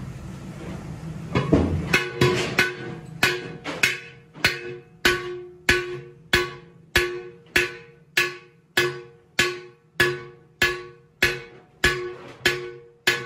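Hand hammer striking a large aluminium cooking pot held upside down over a metal stake, in a steady rhythm of about three blows every two seconds. Each blow rings out with a clear metallic tone that fades before the next. The first couple of seconds hold softer, irregular knocks before the steady rhythm starts.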